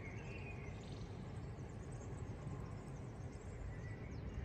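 Faint outdoor ambience: a low, steady rumble with a few faint bird chirps near the start and again near the end.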